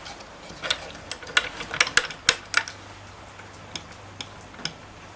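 Sharp metallic clicks and taps from the bared piston of a Suzuki Address 110 scooter engine being rocked by hand on its connecting rod to feel for play. The clicks come as a quick cluster about a second in, then a few scattered ticks.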